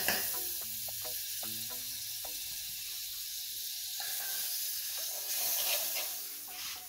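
Butter sizzling as it is spooned into a hot aluminium pot on a charcoal brazier, a steady hiss, with a few light clicks of the spoon against the pot in the first couple of seconds.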